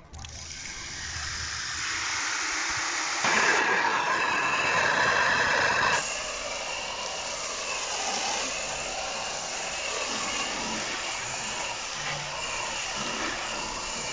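Pressure-washer foam lance spraying shampoo foam onto a car's body: a steady hissing spray. It is loudest, with a steady tone in it, for a few seconds about three seconds in.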